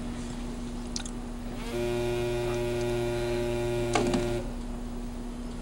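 Mobile phone vibrating with a steady buzz for about two and a half seconds: an incoming call. A faint low hum lies underneath.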